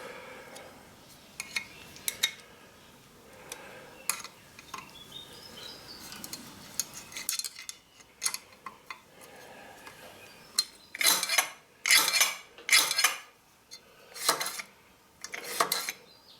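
Metal parts and tools clinking and knocking during bench work on a machine, scattered light clicks at first, then a run of about seven louder, ringing metallic clanks in the last five seconds.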